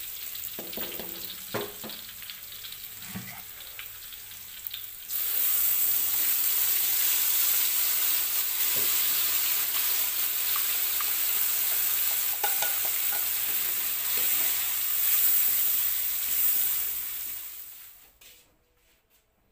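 Sliced food frying in oil in an aluminium wok, sizzling steadily, with a spatula scraping and knocking against the pan. About five seconds in the sizzle suddenly gets louder, and it fades out near the end.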